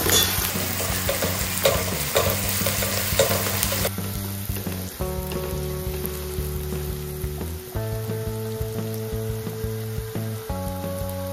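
Chopped onions, garlic and green chillies sizzling in hot oil in a non-stick kadhai, stirred and scraped with a slotted spatula while they sauté toward light brown. The sizzle is loudest in the first four seconds, then quieter.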